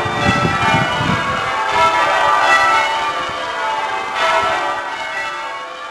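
Church bells being rung in changes, a steady run of overlapping bell strikes. A low rumbling noise sits under them for the first second and a half.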